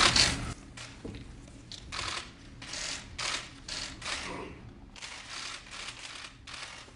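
Press photographers' camera shutters clicking rapidly in irregular runs, many cameras firing at once.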